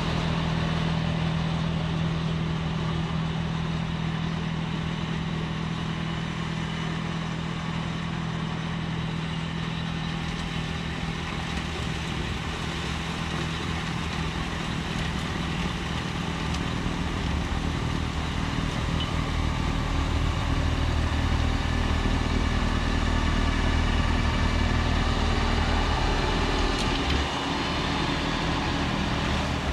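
John Deere 4052R compact tractor's diesel engine running steadily while driving a front-mounted Pronovost PXPL-80 snowblower through the front PTO. It runs a little louder for a stretch past the middle and drops back shortly before the end.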